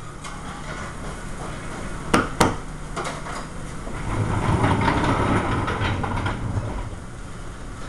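Commercial restaurant kitchen line in service. A steady hum runs under two sharp knocks of cookware about two seconds in, then a louder, busier stretch of kitchen clatter in the middle.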